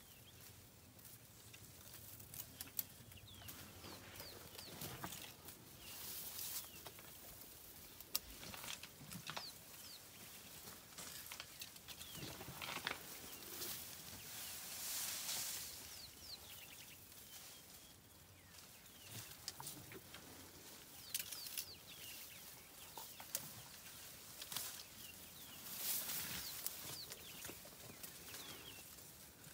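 An elephant browsing close by in dense bush: leaves and branches rustle in swells every few seconds, with a few sharp cracks. Birds chirp throughout.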